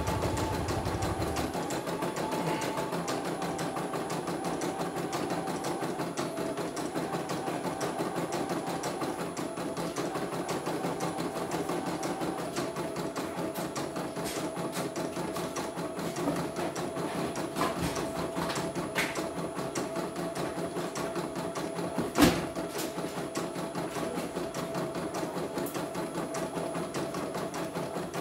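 Computerized embroidery machine stitching a design: a rapid, even needle rattle with a steady tone underneath. A few light clicks come about two-thirds of the way through, then one sharp, louder click.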